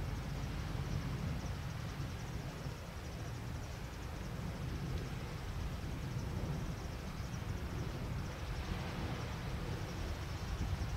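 Seaside ambience: a steady low rumble with an even hiss of sea wash against shore rocks.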